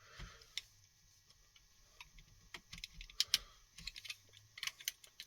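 Faint, irregular small clicks and light scrapes from hand work on a small nylon part.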